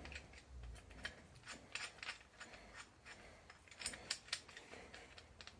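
Faint, irregular metallic clicks and ticks of a bearing puller being tightened onto a differential bearing.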